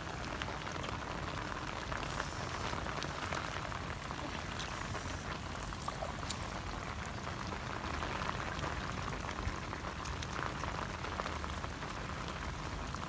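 Rain falling steadily on shallow floodwater and mud: an even hiss peppered with many small drop ticks.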